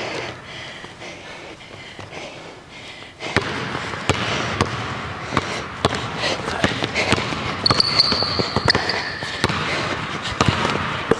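A basketball being dribbled on a hardwood gym floor, the bounces starting about three seconds in and coming quickly and unevenly as she drives. A held high squeal, likely from sneakers on the floor, comes about eight seconds in.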